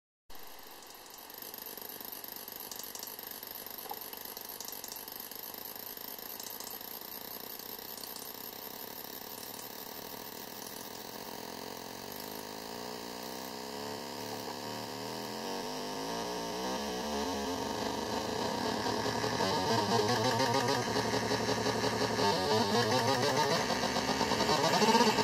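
Olegtron 4060 noise box, a CMOS 4060 oscillator-divider, droning a buzzy chord of several steady tones. About halfway through, the pitches start to slide and warble as its Frequency knob is turned, and the sound grows louder and busier toward the end.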